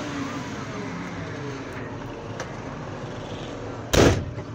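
Caterpillar 950 wheel loader's diesel engine running, heard from inside the cab, its pitch rising and falling as it works. About four seconds in there is one loud, sudden thump as the machine jolts.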